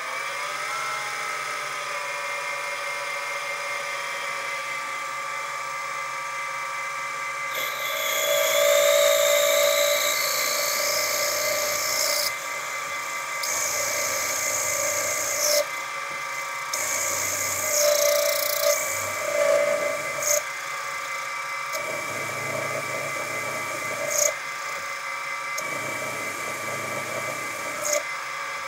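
Sieg mini mill's spindle motor spinning up and running with a steady whine while a 6 mm stub drill cuts into the crank. The cutting adds a high-pitched screech that comes and goes in bursts a few seconds long.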